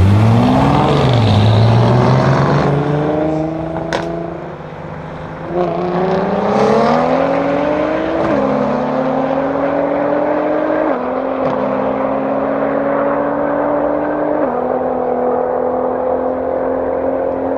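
Mercedes-AMG C63 S W205's twin-turbo V8, with a decatted straight-pipe exhaust, accelerating hard through the gears. The engine note climbs, eases off with one sharp pop about four seconds in, then pulls again. Three upshifts follow, each dropping the pitch before it climbs once more.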